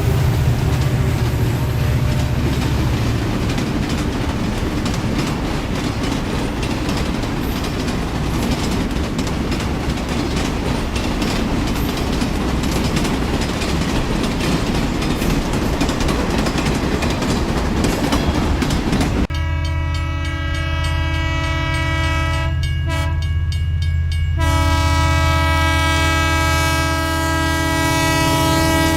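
Train running noise with rapid rail clatter; about 19 seconds in it cuts abruptly to a steady horn-like chord of many held tones.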